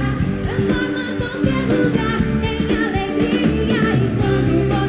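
Live pop music: a band with a steady drumbeat and bass, with a singing voice over it.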